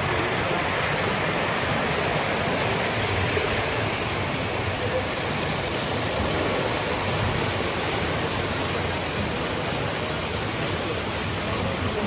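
Steady rolling rumble of O gauge model trains running on the layout's track, with freight and passenger cars passing close by.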